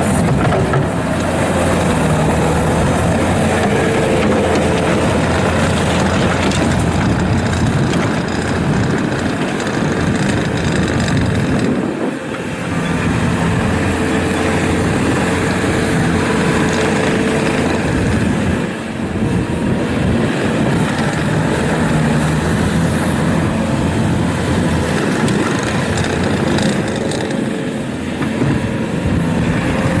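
A 2017 Bobcat T650 rubber-track skid steer loader's diesel engine running steadily with a steady whine over it. The level dips briefly twice, about twelve and nineteen seconds in.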